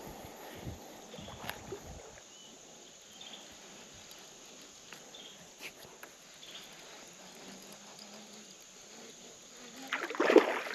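Quiet creek ambience with a few faint ticks, then near the end a short loud burst of splashing as a hooked bass thrashes at the surface on a topwater lure.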